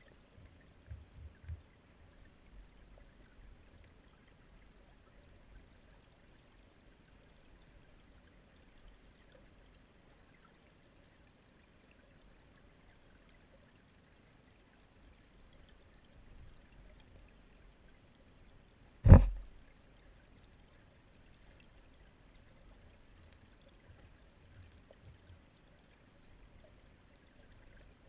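Muffled underwater sound of a river running over gravel, low and faint, with a few soft thumps near the start. One sharp, loud knock comes just past the middle and dies away quickly.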